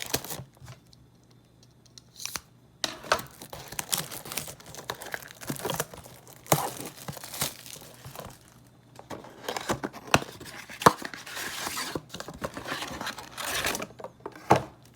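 A sealed box of trading cards being ripped open by hand, with irregular tearing and crinkling of wrapping and cardboard that starts after a quiet first couple of seconds.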